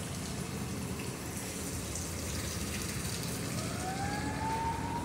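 Steady low background noise, then about three and a half seconds in a river launch's siren starts up, its pitch rising and then holding on one steady note.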